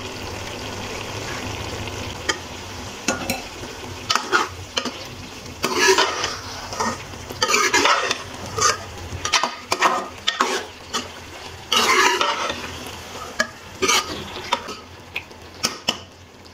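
A steel spoon stirring and scraping through eggplant and taro pieces in a metal pot while they sizzle in oil. A steady sizzle at first, then about four seconds in a run of irregular scraping strokes against the pot that fades near the end.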